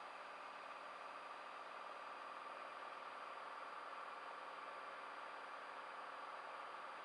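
Cessna Skylane's piston engine and propeller droning steadily in flight, faint and even.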